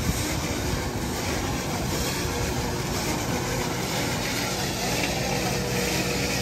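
Tractor with a bale wrapper driving across a field to the next bale, its engine running steadily.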